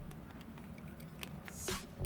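Faint rustling with a few light clicks, as of small plastic nail-art items and their packaging being handled, with one slightly louder click near the end.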